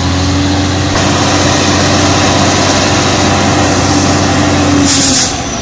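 Heavy truck's diesel engine running steadily under load as the truck sits stuck with its rear wheels in mud. Near the end comes a short hiss, and then the engine note drops away.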